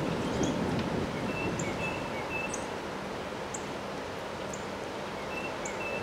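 Strong gusty wind rushing through bare trees, loudest in a gust at the start and then easing to a steady rush. A few short, high bird chirps come in around the middle and again near the end.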